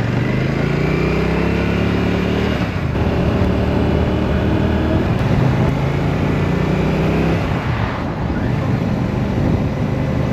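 Royal Enfield Shotgun 650's 648 cc parallel-twin engine pulling away under acceleration, its pitch rising, dropping at a gear change about three seconds in, rising again, and dropping at another change near eight seconds.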